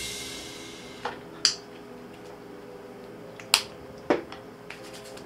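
The tail of a guitar music intro fades away, leaving a quiet background music bed of held tones. A few sharp snap-like clicks come through it at irregular intervals.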